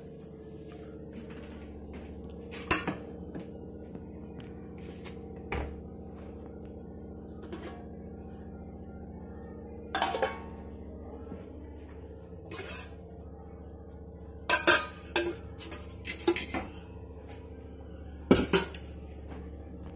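Stainless steel plates and utensils clanking and clattering as they are handled and set down, in scattered separate knocks, the loudest a cluster about two-thirds of the way in and another near the end. A steady low hum runs underneath.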